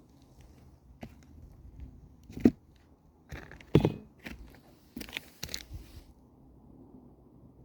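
Irregular crunching and scraping, with two sharp, loud crunches about two and a half and four seconds in, then a quick run of smaller ones.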